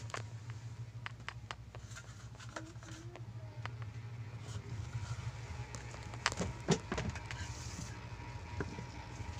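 Steady low hum with scattered light clicks and knocks; two louder knocks come a little after six seconds in.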